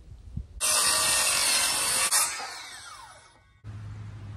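Circular saw cutting through 3/4-inch plywood for about a second and a half, then its blade whining down in pitch as it coasts to a stop. A steady low hum follows near the end.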